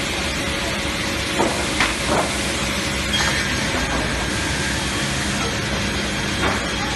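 MJ141 multi-rip edging saw running with a steady rushing noise and a faint steady hum. A few short wooden knocks sound about a second and a half in, twice around two seconds, at three seconds and near the end.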